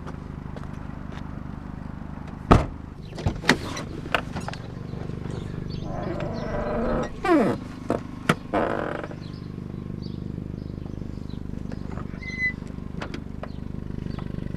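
Junk being handled in a trash pile: a few sharp knocks, then a scraping, rattling stretch with a short falling squeal, over a steady low hum.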